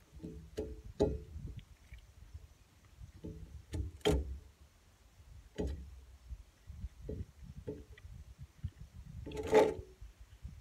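Irregular soft knocks and scrapes of eating with the fingers from a ceramic plate on a glass tabletop, with a louder knock near the end.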